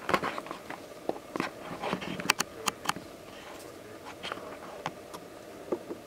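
Lyrebird scratching and raking through dry leaf litter: a quick run of sharp crackles and snaps in the first three seconds, then scattered clicks.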